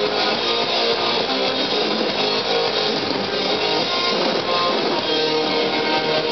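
Punk rock band playing live: loud, steady strummed electric guitars over bass guitar.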